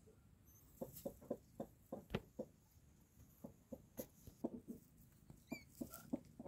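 Broody hen's faint, low clucks, repeated in short runs of about three or four a second.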